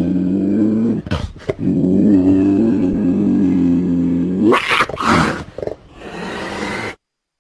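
Cougar growling: a long, low growl, a short break with a few sharp clicks, then a second long growl that rises in pitch at its end into harsh, noisy snarls. The recording cuts off suddenly near the end.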